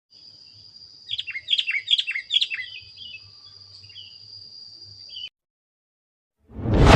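Sooty-headed bulbul (kutilang) singing a quick phrase of four or five descending whistled notes, then softer calls, over a steady high-pitched whine. The sound cuts off about five seconds in, and a loud rushing noise swells up near the end.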